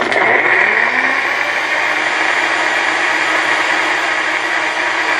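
NutriBullet RX blender switching on and running steadily at full speed, blending a smoothie with ice cubes and banana.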